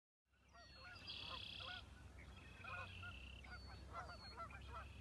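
A flock of waterfowl honking, many short calls overlapping, fading in at the start, over a low steady rumble.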